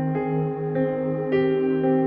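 Calm ambient instrumental background music, with sustained notes and a new note starting about every half second.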